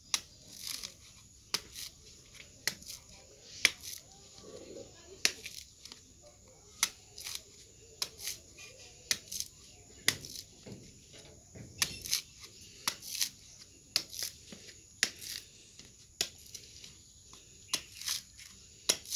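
A machete blade striking into a coconut's fibrous husk, husking it by hand: repeated sharp chops at an irregular pace of about one to two a second.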